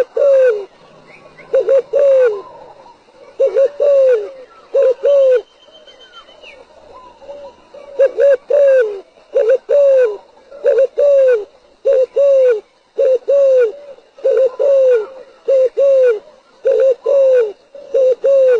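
Spotted dove cooing: loud, low coos, each bending downward in pitch, repeated in short groups, with a pause about six to eight seconds in. Faint, higher-pitched calls of other birds sound in the background.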